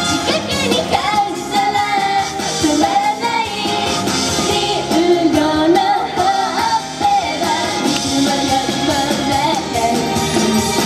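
Japanese idol pop song performed live by young female singers into handheld microphones, their voices carrying the melody over an upbeat pop accompaniment through stage speakers.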